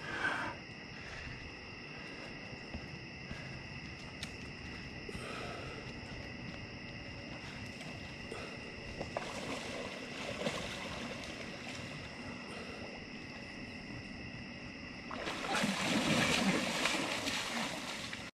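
Night insects calling in a steady chorus of high, unbroken tones, with a louder stretch of rushing noise over the last few seconds.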